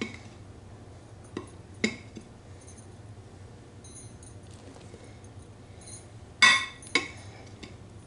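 Metal measuring cup clinking against a glass flour canister and a stainless steel mixer bowl while flour is scooped and poured. It starts with a couple of light knocks, then gives a loud ringing clink about six and a half seconds in, with a second just after.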